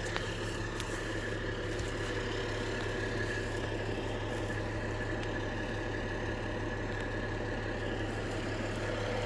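An engine idling with a steady low hum that does not change.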